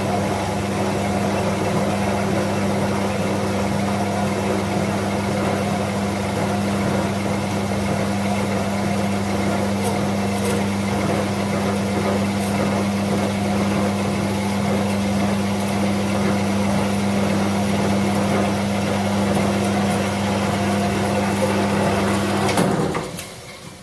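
Small metal lathe running steadily with a strong motor hum, then switched off near the end and winding down.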